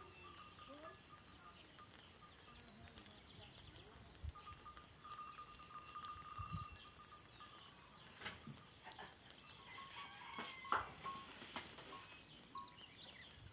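Faint bleating from a distant herd of small livestock, with thin high calls and scattered clicks in the background.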